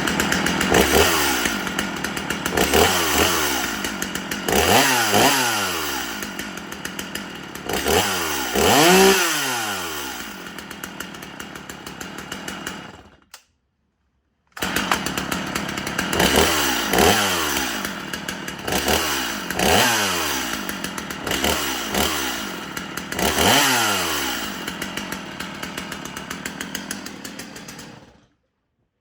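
Two-stroke chainsaw running with repeated throttle blips, its pitch rising and falling about every second or two. It winds down and stops about halfway through, starts running again a moment later, revs several more times, then dies away near the end.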